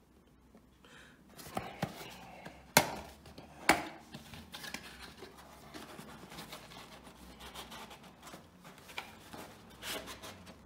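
Cardboard speaker carton and its packaging being handled and opened: three sharp knocks about two, three and four seconds in, then light scratching and rustling.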